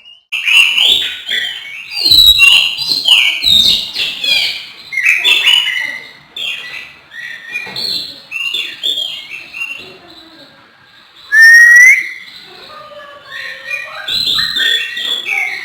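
Oriental magpie-robin (kacer) singing a fast, varied song of short whistles and chirps, easing off briefly about two-thirds through and then giving one loud rising whistle.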